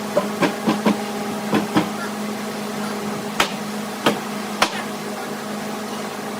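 A steady mechanical hum with irregular sharp knocks or taps, several close together in the first two seconds and a few more spaced out around the middle.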